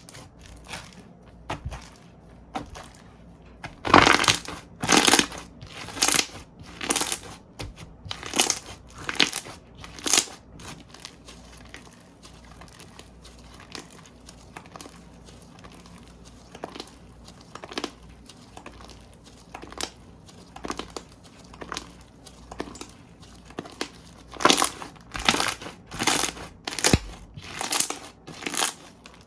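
Slime being squeezed, pressed and stretched by hand up close to the microphone: a run of short, sharp squishing and popping sounds about once a second. They are busiest early and again near the end, with only small sounds in the middle.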